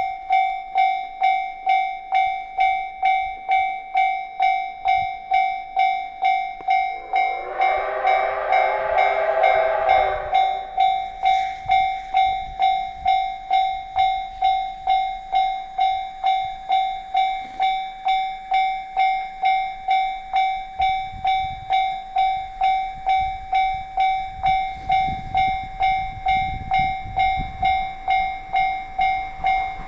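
Level-crossing alarm ringing in steady, even strokes, about one and a half a second. About seven seconds in, a steam locomotive's whistle gives one chord-like blast of about three seconds. A low rumble of the train comes in during the second half.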